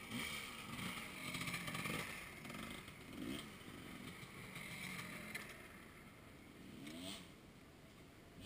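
Dirt bike engines revving up and down, rising and falling in pitch, with louder swells about three seconds in and again about seven seconds in.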